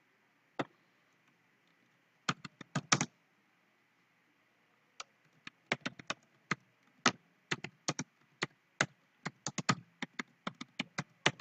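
Typing on a computer keyboard: sharp key clicks in uneven runs, a short flurry about two seconds in, then a longer stretch of frequent keystrokes through the second half.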